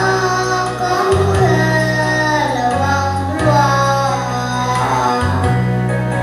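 A young girl singing into a microphone over instrumental accompaniment, with sustained bass notes that change every second or two beneath her voice.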